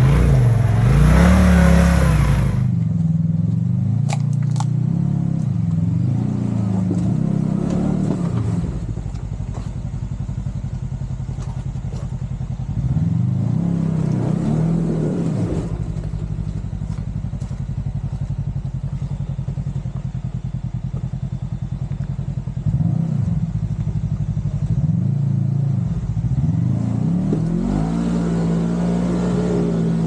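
Side-by-side UTV engine running at trail speed, its revs rising and falling again and again as the throttle is worked. It is louder for the first couple of seconds, then settles into a lower, steady drone between the rev-ups.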